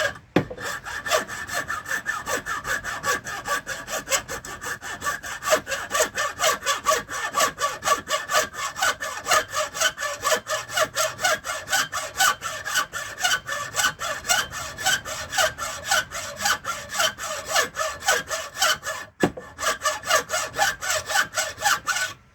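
Small hand saw cutting a starter kerf into caribou antler held in a vise, in rapid, even back-and-forth strokes. The strokes pause briefly twice, once right at the start and once about 19 seconds in, and stop abruptly at the end.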